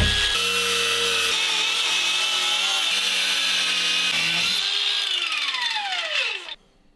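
Cordless angle grinder with a cutting disc cutting through a hardened steel file clamped in a vise, a steady high whine. About four and a half seconds in the pitch falls steadily as the motor winds down, and the sound cuts off abruptly just before the end.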